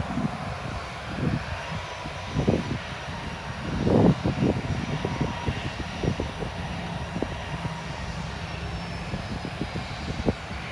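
Distant jet engines of a narrow-body twin-jet airliner running on the runway: a steady rumble and rush with a faint whine. Wind buffets the microphone throughout with uneven low thumps, the strongest about four seconds in.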